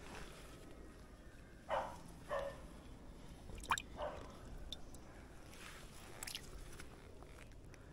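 Hand splashing and sloshing in shallow water, with drips and a few short, sharper splashes or knocks.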